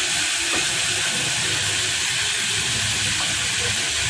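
Chicken drumsticks frying in hot oil in a wok: a steady sizzle, with a couple of faint clicks from metal tongs turning the pieces.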